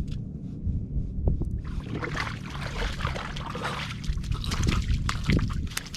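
Water splashing and sloshing in an ice-fishing hole, with many small clicks and knocks, as a small lake trout is brought up through the ice; a low steady rumble runs underneath.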